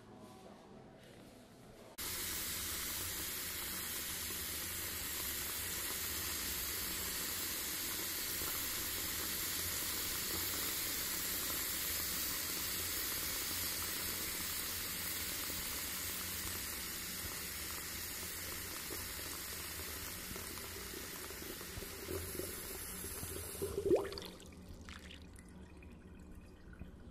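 Steady rush of running water that cuts in abruptly about two seconds in and stops near the end, just after a brief louder clunk.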